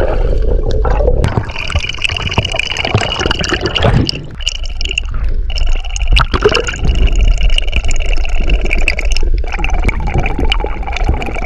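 Sea water sloshing and gurgling around an action camera as it moves underwater and breaks the surface, over a steady low rumble of water against the camera.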